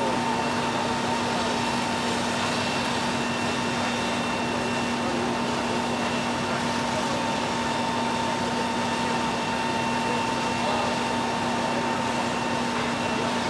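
Steady drone of heavy diesel equipment running at a fire scene (fire apparatus pumping a ladder-pipe water stream, and an excavator), with a constant hum and an even hiss that do not change.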